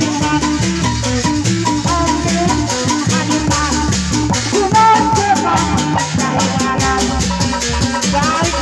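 Live Sundanese sisingaan ensemble music: drums and low bass notes under a fast, even rattling beat, with a bending melody line over the top.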